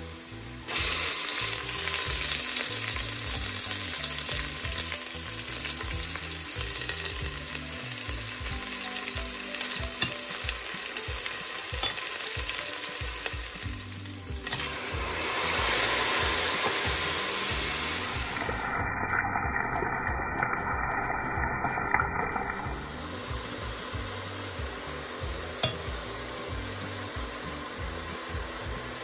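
Onions frying in hot oil in a steel pan, stirred with a spatula; the sizzle jumps up loudly about a second in as garlic-ginger paste goes into the oil. The pan swells again around the middle as steam rises, with a few sharp clicks of the spatula on the pan.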